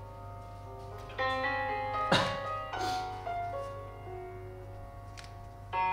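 Gentle piano music playing, with a sharp knock a little after two seconds in and a softer one just under a second later.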